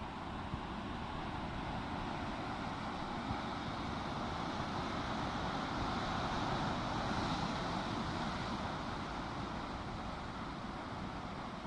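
Sea surf washing onto the shore, a steady hiss that swells briefly about halfway through.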